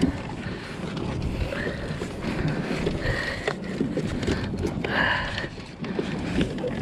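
Water sloshing and dripping around a kayak, with small irregular knocks and clicks, and brief splashes about three and five seconds in.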